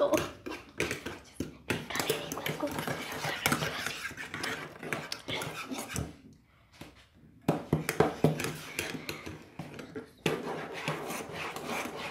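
Spoon scraping against a pot while stirring a foamy mixture, in two stretches with a short pause in the middle.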